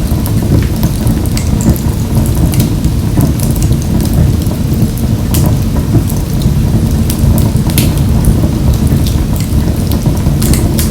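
Wood fire burning in a wood-burning stove: a steady low rumble of flames with frequent sharp crackles and pops scattered throughout.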